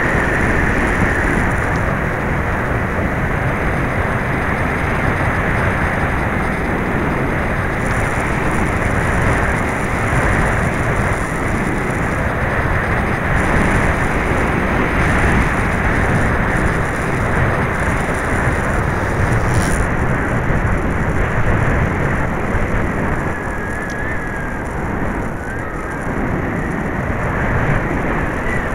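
Onboard-camera audio of an electric FPV-Raptor 1600 model plane in flight: steady rush of air and propeller noise from its electric motor, in strongly gusting wind, with the propeller slightly out of balance. The high hiss drops away about two-thirds of the way through.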